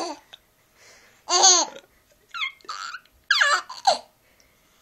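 A young child laughing and babbling in three short bursts with pauses between. Each burst is high-pitched and rises and falls in pitch.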